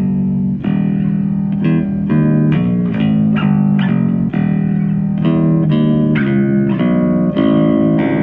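A Rickenbacker-style kit electric bass guitar played on its own: a run of single plucked notes, about two a second, each with a sharp attack and changing pitch.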